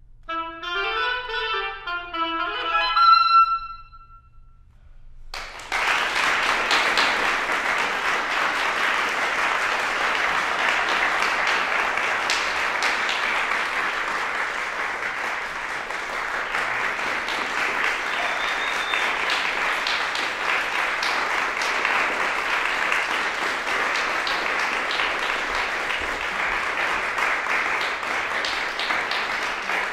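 Solo oboe playing a closing phrase that ends on a longer note a little under four seconds in. After a short pause, audience applause starts about five and a half seconds in and goes on steadily.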